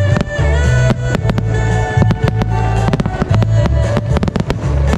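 Fireworks going off in many quick sharp bangs and crackles over loud show music with a heavy bass, the music deliberately filtered and muffled.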